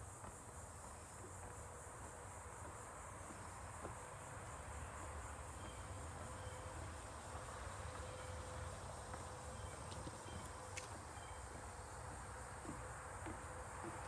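Steady, high-pitched chorus of insects trilling continuously, over a faint low rumble, with a single sharp click about eleven seconds in.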